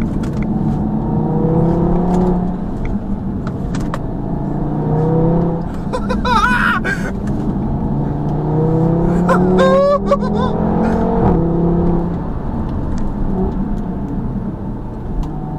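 2017 Audi TT RS's turbocharged 2.5-litre five-cylinder engine and sports exhaust under hard acceleration. The pitch rises through the revs and drops back at each upshift, several times over, with a few short sharp cracks.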